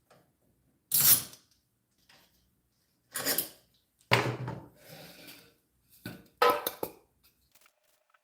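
Tools and parts being handled on a workbench: a handful of separate short clatters and scrapes, the loudest about a second in and around four seconds in.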